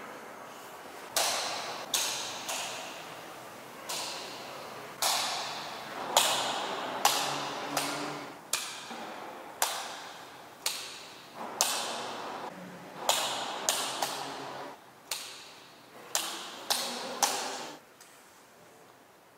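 A series of sharp taps, each ringing out briefly, coming at uneven intervals of about half a second to a second and stopping about 18 seconds in.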